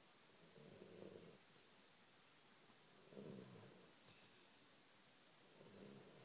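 Soft, regular snoring: three snores about two and a half seconds apart, each a low rumble with a breathy hiss.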